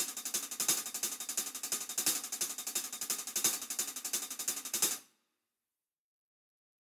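Sampled 15-inch Sabian hi-hat from Addictive Drums 2 playing a fast, steady run of sixteenth notes at 174 bpm, about eleven to twelve strokes a second, with strokes rising and falling in loudness as the note velocities vary. It stops about five seconds in.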